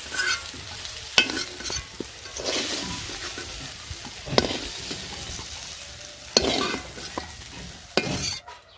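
Fried cauliflower florets being stirred and lifted out of hot oil: a steady sizzle with the scrape and knock of a spatula against the pan several times. The sizzle drops away near the end.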